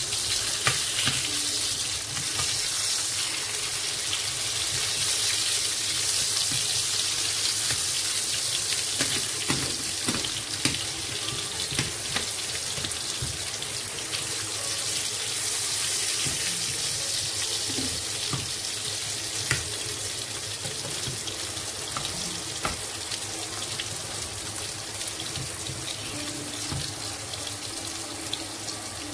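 Garlic sizzling steadily in hot oil in a pan, with scattered small crackles, frying until it turns golden.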